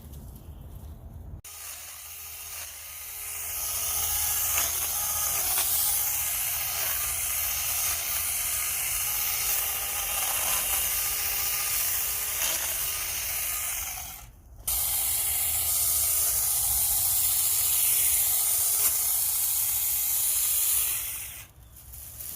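Battery-powered 20-volt Saker mini electric chainsaw running, its chain whirring as it cuts through vines. It starts about a second and a half in, stops for a moment just past the middle, starts again and stops near the end.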